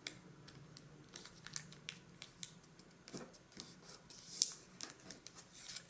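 A sheet of origami paper being folded and creased by hand: a scatter of soft, crisp rustles and ticks as the fingers press the folds flat, the loudest about four and a half seconds in.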